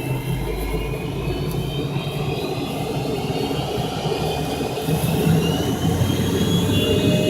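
MD-83's rear-mounted Pratt & Whitney JT8D turbofans heard from inside the cabin, spooling up: a whine that climbs slowly in pitch over a low rumble that grows louder.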